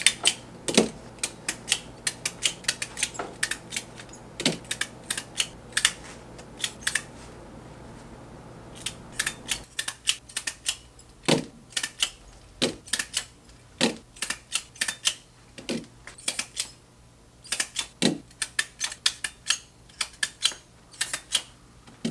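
Handheld stapler snapping staples through layers of fabric again and again, basting a cover panel in place: sharp clicks in quick runs of several a second, broken by short pauses.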